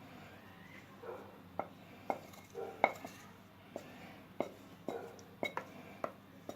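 Spoon tapping and scraping against a bowl as melted chocolate is scraped out into the blender: a dozen or so light, irregular knocks, some with a short ring, the loudest about three seconds in.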